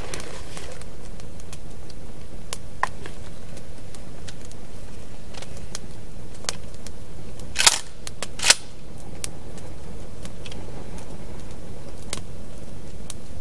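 Wood campfire crackling with scattered small pops over a steady hiss. Near the middle come two loud, sharp hatchet strikes on wood, less than a second apart.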